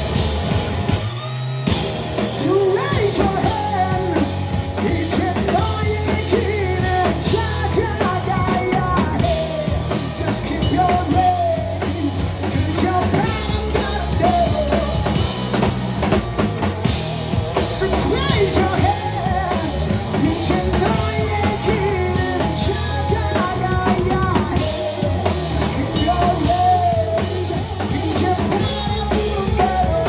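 Live rock band playing: drum kit, electric bass and electric guitar. The bass and drums drop out for about a second shortly after the start, then come back in.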